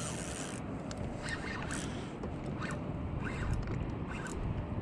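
Steady wash of water and wind around a kayak, with a few short, faint, high calls scattered through it.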